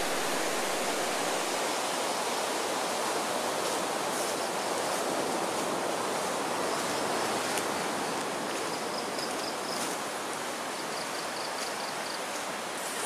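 Steady rush of surf breaking on a sandy beach, easing slightly in the second half.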